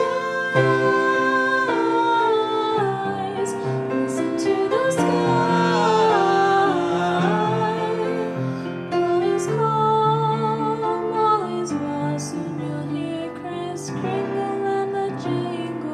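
A woman singing a slow song into a microphone, held notes with vibrato, accompanied by an upright piano.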